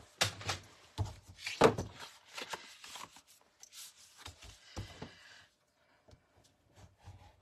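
Cardstock being handled and folded on a tabletop work mat: a few sharp knocks and taps in the first two seconds, then lighter paper handling and a short rubbing swish about five seconds in as a bone folder is drawn along the scored fold.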